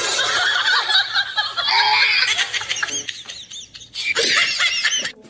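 High-pitched giggling laughter in quick bursts, with a short break about three and a half seconds in before a final burst. It is most likely a laugh sound effect laid over the cat clip.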